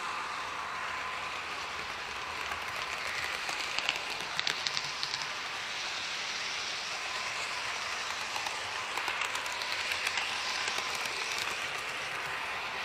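HO-scale model train cars rolling along the track, heard from a camera car inside the train: a steady rushing hiss of small wheels on rail, with a few quick clusters of clicks as the wheels pass over rail joints or turnouts.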